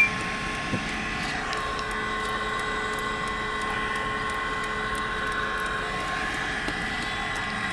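Steady hum of a car running at low speed, heard from inside the cabin.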